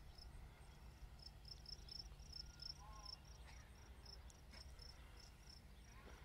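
Near silence with faint crickets chirping: a quick high chirp repeated about four to five times a second, over a low steady rumble.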